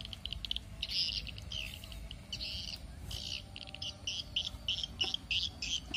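A small bird chirping over and over in short, high notes. In the second half the notes come evenly, about three a second.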